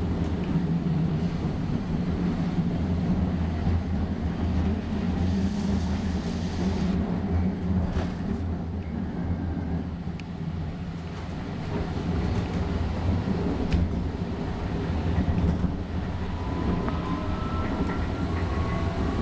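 Running noise inside an O-Train Confederation Line light rail car at speed: a steady low rumble of wheels on the rails, with a few sharp clicks near the middle and a faint rising whine near the end.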